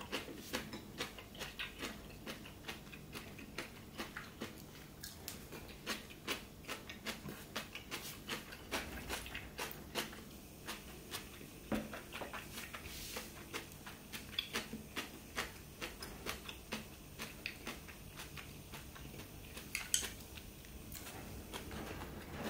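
Chopsticks clicking and tapping against ceramic bowls and a plate while eating: small irregular clicks, a few a second, with one sharper knock near the end.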